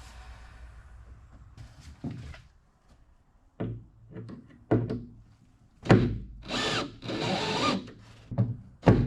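Sharp knocks on wood during hand work, with a power drill running briefly, a little over a second, about two-thirds of the way through.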